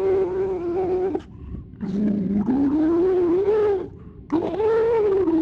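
A wordless, distorted voice trying to speak, held out in three long drawn-out moans with short breaks between them. The first stays at one pitch; the next two dip and then climb.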